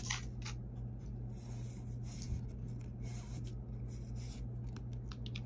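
Trading cards being slid and flipped through the hands: soft rustling swipes with a few light flicks. A steady low hum runs underneath.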